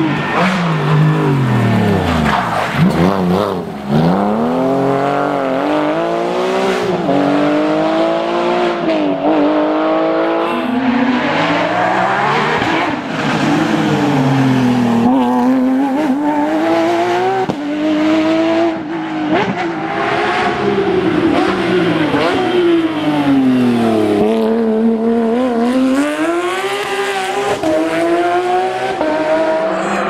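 Porsche 911 GT3 rally cars' naturally aspirated flat-six engines revving hard as they pass one after another. The pitch climbs through the gears and drops sharply on lift-off and downshifts into the corners.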